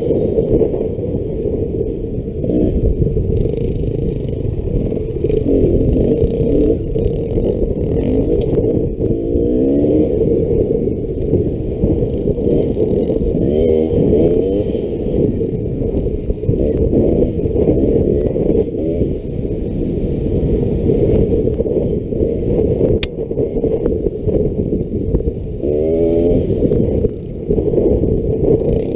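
2018 Beta XTrainer two-stroke dirt bike engine running under load on a trail, its pitch rising and falling several times as the throttle is opened and closed.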